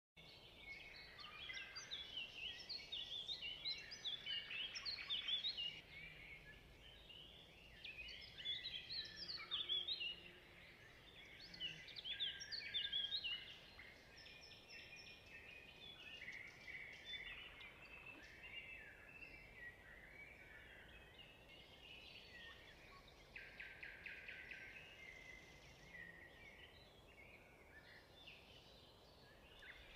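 Birds chirping and singing: many short, quick rising and falling calls in dense bursts, thinning out after the first dozen seconds.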